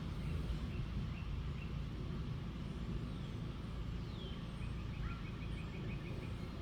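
Outdoor ambience: a steady low rumble with small birds calling over it. Near the middle a falling whistle sounds, followed by a quick run of short, even chirps.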